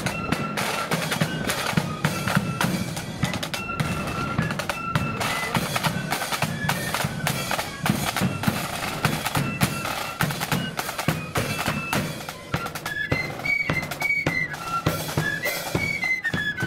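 Blood-and-thunder marching flute band playing: flutes carry a tune over fast, continuous side-drum strokes and a bass drum beat. The tune climbs higher about two-thirds of the way through.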